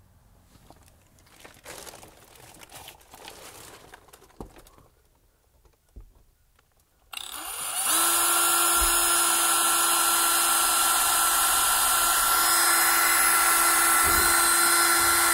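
Cordless drill spinning up and running at a steady full-speed whine, drilling a hole through a wall panel into the van's side. It starts about halfway through, after some quiet hand rustling against the panel.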